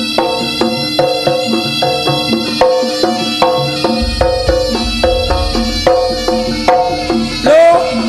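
Live jaranan ensemble playing a fast, even rhythm of struck pitched notes with drums. A loud sliding tone comes in near the end.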